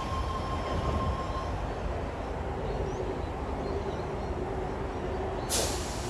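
Sydney Trains double-deck electric train standing at the platform with doors shut, its equipment running with a steady rumble; a steady high tone stops about a second and a half in and a lower steady hum sets in. A short, sudden burst of hiss comes near the end.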